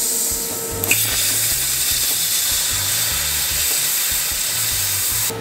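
Cutmaster 42 plasma cutter torch cutting steel: a loud, steady hiss of air and arc, broken briefly by a click about a second in, then running on until it cuts off suddenly near the end.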